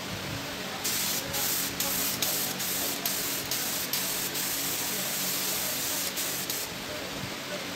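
Compressed-air gravity-feed spray gun spraying a finish coat onto wood: a loud hiss starts about a second in, breaks off briefly several times as the trigger is let go, and stops shortly before the end.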